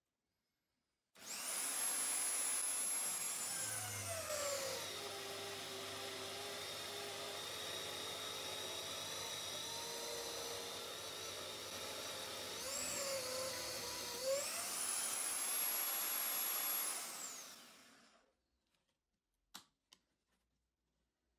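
Electric drill in a wooden drill-press stand boring a large hole in plywood with a Forstner bit. The motor starts with a high whine that drops in pitch as the bit bites into the wood, runs steadily under load, then rises again as the bit comes out of the cut and winds down to a stop. A few faint clicks follow near the end.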